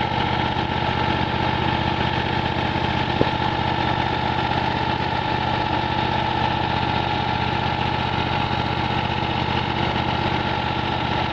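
Kohler 20 HP V-twin engine of a Miller Legend 302 welder-generator running steadily, with a single sharp click about three seconds in.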